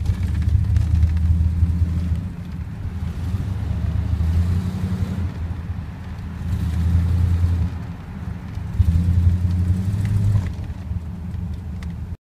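A car being driven: a low engine and road rumble that swells and eases several times, then cuts off abruptly near the end.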